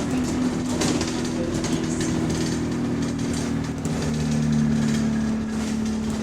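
Single-deck bus engine and drivetrain running, heard from on board: a steady hum with two held tones over a rumble, growing a little louder about four seconds in.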